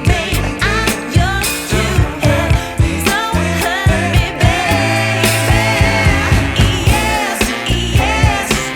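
Background pop music: a female singer over a steady drum beat.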